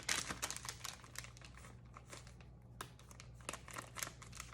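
Light crinkling and scattered small clicks of plastic packaging being handled, busier at the start and near the end with a sparser spell in the middle.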